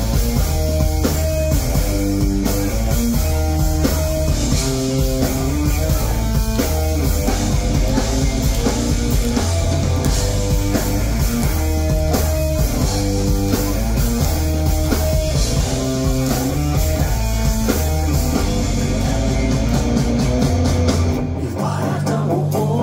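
Live pop-punk band playing an instrumental passage: drums, bass and electric guitars under a melodic lead line. About 21 seconds in, the deep bass drops away and the guitars carry on.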